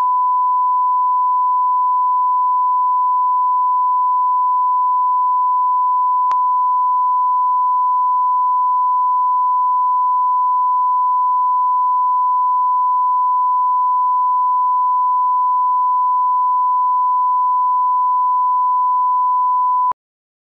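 Steady 1 kHz line-up test tone, the reference tone that goes with colour bars, held on one pitch with a brief click about six seconds in; it cuts off just before the end.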